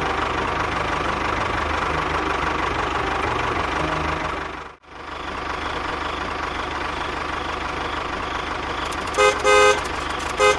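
Tractor engine running steadily, breaking off for a moment about halfway. Near the end a vehicle horn gives three short toots.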